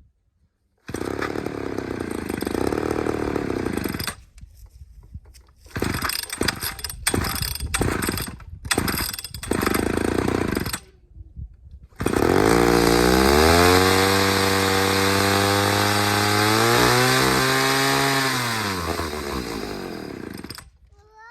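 Homelite Super XL Auto two-stroke chainsaw running: a few seconds of steady running, then choppy on-and-off running, then after a pause it runs up, holds a steady pitch for several seconds and winds down to a stop. The saw is behaving lean, as the owner judges it.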